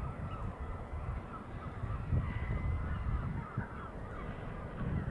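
A flock of birds calling, many short overlapping calls chattering on, over gusty wind rumble on the microphone.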